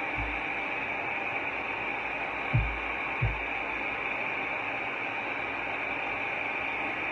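Handheld hair dryer running steadily, a continuous rush of air, with a few brief low thumps in the first half.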